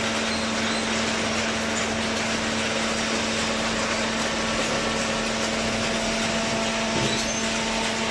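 Hydraulic waste paper baler running: a steady motor and pump hum over a dense mechanical noise, with a slight change in the sound about seven seconds in.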